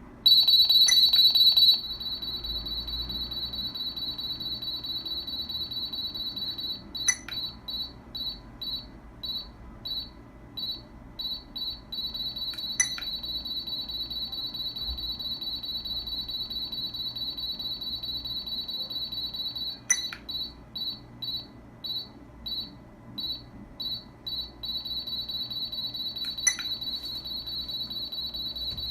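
Street Storm STR-7010BT radar detector sounding its high-pitched alert tone as it picks up a RADIS radar gun. The tone is loud and unbroken at first, then breaks into a fast run of short beeps, then holds steady again near the end. A few sharp clicks are heard along the way.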